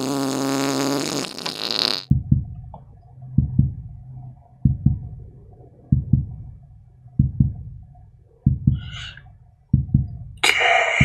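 A drawn-out pitched sound for about the first two seconds, then a slow heartbeat: paired low thumps, lub-dub, repeating about every 1.3 seconds. A short hiss and a louder burst break in near the end.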